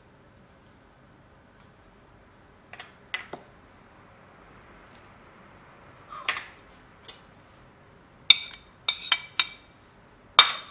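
Kitchen utensils and dishes clinking against a bowl: a few scattered taps at first, then quicker clinks with a short ring near the end.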